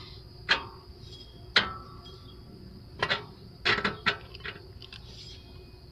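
Steel wrench clinking against the nut and bolt of a moped's rear shock absorber mount as the nut is worked loose. There are several sharp metallic clinks, the loudest about one and a half seconds in and a quick cluster around three to four seconds.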